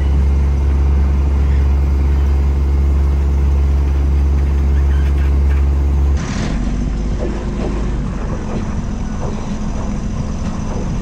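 Sailboat's inboard engine running steadily under power with a deep, even drone. About six seconds in the sound changes abruptly and the low drone drops away.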